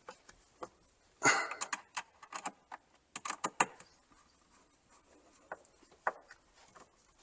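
Screws being tightened by hand to mount the outlet box: scattered clicks and knocks of tool and hardware, busiest from about a second to four seconds in, then a few isolated clicks.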